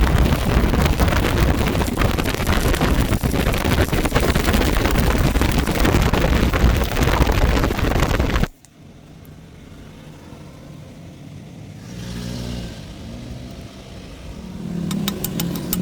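Stick-welding arc crackling loudly and steadily on round tube, cutting off abruptly a little over halfway through as the arc is broken. A low steady hum with a fast regular ticking starts near the end.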